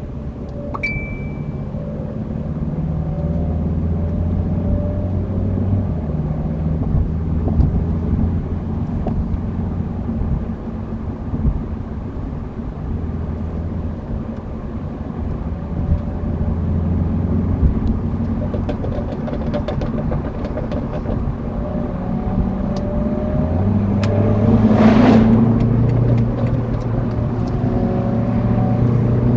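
BMW 340i's turbocharged straight-six exhaust running, its low note shifting up and down in steps. In the second half it is scattered with sharp crackles and pops (burbles), and near the end there is a louder swell.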